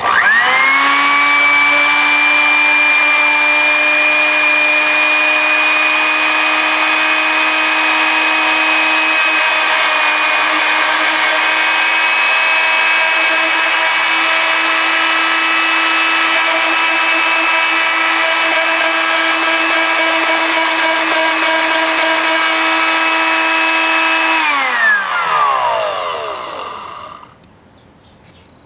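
Blender motor on its liquefy setting, blending kinetic sand. It spins up sharply at the start, holds a steady whine over a hiss for about 24 seconds, then is switched off and winds down, falling in pitch until it stops.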